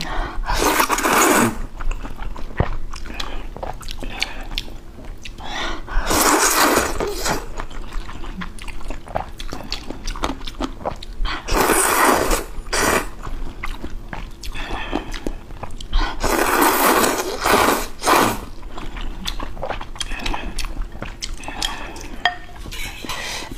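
Noodles slurped up into the mouth in four long sucking slurps, a few seconds apart. Soft chewing and small mouth clicks come between the slurps.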